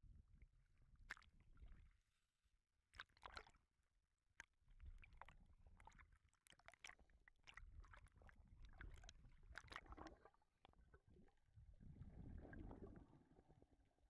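Very faint, muffled water noise heard through a waterproof camera housing: a low, uneven sloshing rumble with scattered crackles and clicks as the camera goes under the surface.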